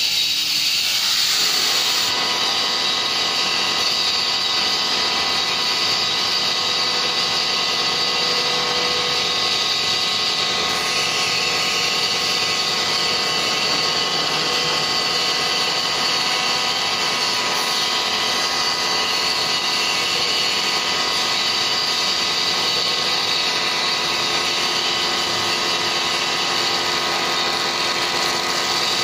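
Cookware bottom-turning lathe cutting the base of a spinning metal pot: a steady machining whine with several held tones over a hiss, settling in during the first second or two.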